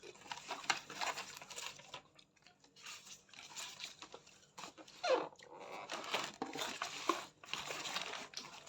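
Packaging being handled for an unboxing: irregular crinkling, rustling and small clicks. About five seconds in there is a short falling squeak.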